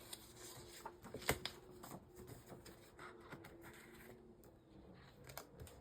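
Quiet handling of paper planner inserts: soft rustles and small taps, with a sharper tap about a second and a half in, over a faint steady hum.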